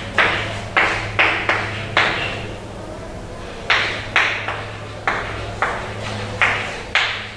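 Chalk writing on a chalkboard: about a dozen sharp taps and short scrapes as letters are written, in quick runs with a pause of about a second near the middle.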